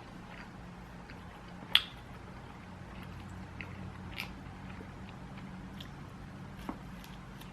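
A person biting and chewing food close to the microphone, with a few short sharp mouth clicks; the loudest comes about two seconds in. A steady low hum runs underneath.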